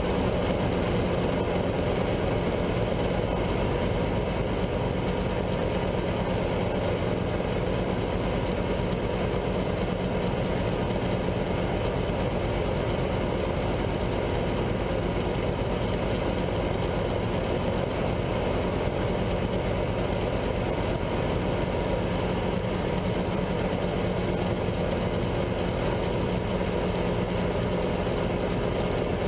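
Guimbal Cabri G2 helicopter in cruise flight, heard from inside the cabin: the steady drone of its four-cylinder Lycoming piston engine and rotors, holding an even pitch and level throughout.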